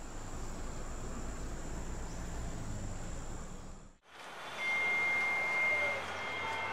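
Steady background ambience with a thin, high, steady tone running through it, cutting out about four seconds in; a different ambience then comes in, with a steady whistle-like tone for about a second and a half.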